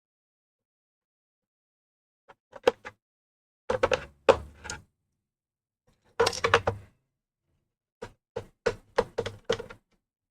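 Sharp clicks and knocks of a screwdriver and hands working screws out of a plastic laptop base, in a few short clusters, with a quick run of even clicks near the end.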